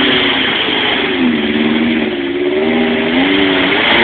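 Four-cylinder 4x4's engine revving, its pitch dropping about a second in and then rising and falling again.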